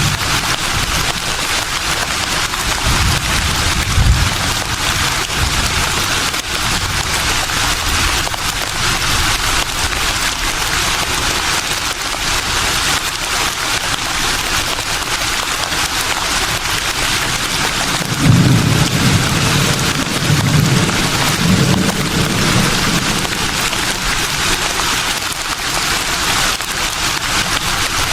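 Leaves rustling in a steady breeze, a dense, even hiss. Low wind rumbles come in about four seconds in and again for a few seconds around two-thirds of the way through.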